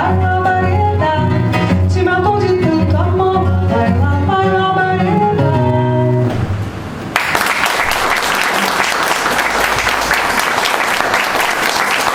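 A song on acoustic guitar with singing, played out to a final held chord, then audience applause breaking out suddenly about seven seconds in and carrying on.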